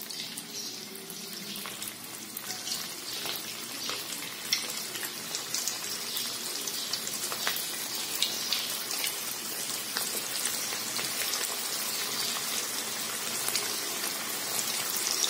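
Cabbage manchurian balls deep-frying in hot oil in a kadhai: a steady sizzle with many small crackling pops. It grows gradually louder as more balls are dropped into the oil.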